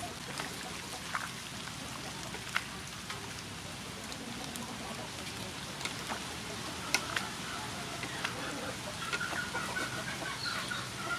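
Water boiling in a metal wok while a wooden spatula stirs and knocks against the pan, giving scattered sharp clicks over the steady bubbling. About nine seconds in, a bird calls repeatedly in the background.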